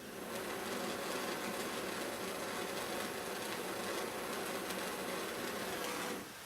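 Handheld gas torch flame burning with a steady hiss while heating solder, shut off near the end.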